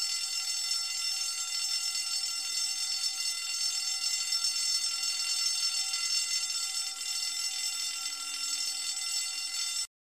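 Fire alarm sound effect ringing as one unbroken, steady tone, stopping suddenly near the end.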